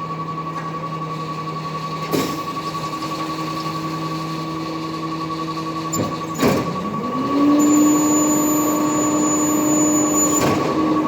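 City recycling truck with a constant high-pitched beep that pulses rapidly, over the truck's engine running steadily. About six and a half seconds in the engine dips and then revs up to a higher steady pitch. A few sharp clunks come at about two, six and ten seconds.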